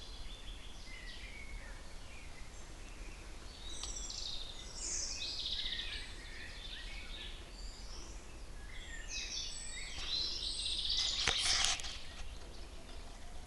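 Several songbirds singing at once, overlapping chirps and trills, louder and denser about eleven seconds in, over a steady low rumble.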